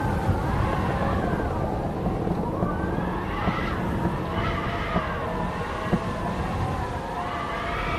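Howling wind: several whistling tones rising and falling together over a low, steady rumble, with a few light knocks scattered through.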